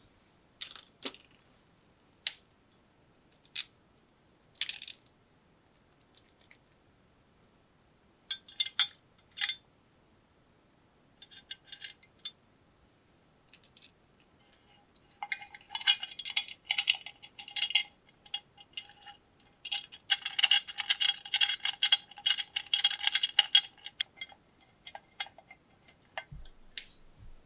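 Small metal lantern parts clicking and clinking as they are handled and fitted together, a few separate clicks at first, then a long run of rapid metallic clicking and scraping as a part is screwed onto the lantern's metal base.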